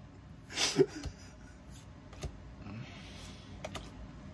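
Pokémon trading cards handled in a stack: a card slid off the front with a short swish about half a second in, then a few light clicks and a soft rustle of card stock as the next cards are flipped.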